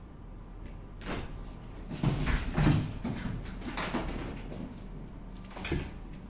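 Cats running about during zoomies: a string of thumps and scrabbles on the tiled floor, heaviest about two to three seconds in, with another knock near the end.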